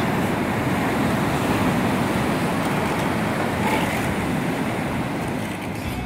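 Rough Atlantic surf breaking and washing ashore in storm-churned water: a steady, even rush of waves.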